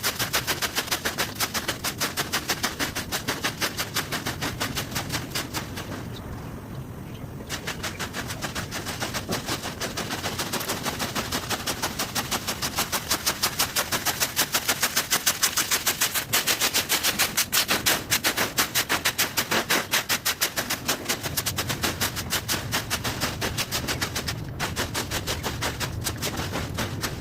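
A broom sweeping dry leaves in quick, scratchy strokes, about four a second, with a short pause about six seconds in.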